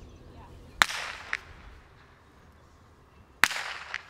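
A whip cracking twice, about two and a half seconds apart. Each loud crack is followed by a fainter snap about half a second later.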